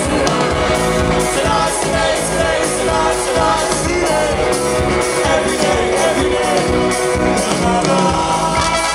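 Live rock band playing with a singer, a steady beat under the voice and guitars.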